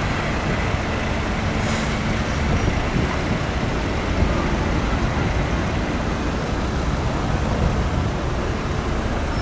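Mercedes-Benz Atego fire engine's diesel engine idling steadily, mixed with the rumble of road traffic.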